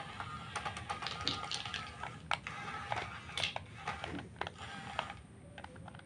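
Radio-controlled model excavator and bulldozer at work: a run of quick, irregular clicks and rattles from their small gears, tracks and moving parts, with a faint whine in the first half.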